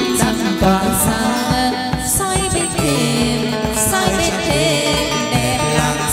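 Live chầu văn ritual music: a plucked moon lute (đàn nguyệt) over a steady drum and clapper beat, with a few bright metallic strikes.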